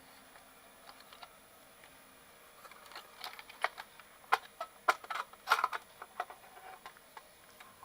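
Irregular light clicks and taps of the opened process calibrator's parts being handled, densest from about three to six seconds in.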